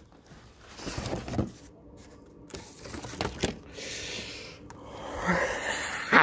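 Handling noises from a parcel being opened: scattered soft rustles and scrapes of packaging, with a few short tearing sounds.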